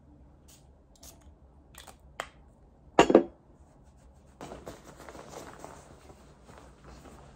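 Small clicks from handling a glass perfume bottle and its cap, then a loud, short knock about three seconds in as the bottle is set down on the tabletop. From about four and a half seconds, the continuous rustle of a puffer jacket being pulled on.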